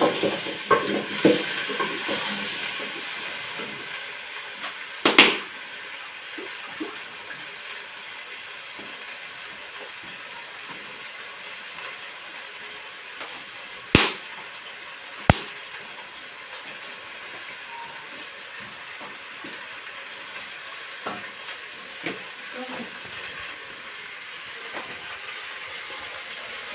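Food sizzling as it fries in a pan, with stirring and a few sharp knocks, three of them standing out clearly.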